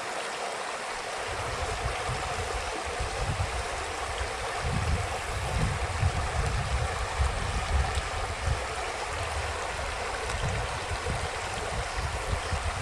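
Stream water flowing and splashing steadily over rocks. A low, uneven rumble joins about a second in.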